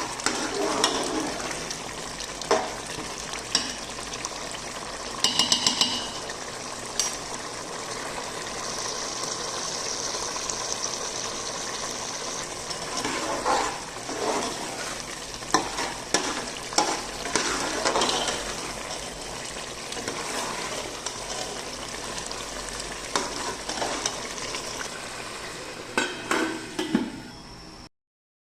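Keema aloo matar (minced meat with potatoes and peas) sizzling steadily in a pot while a spoon stirs it, knocking and scraping against the pot now and then.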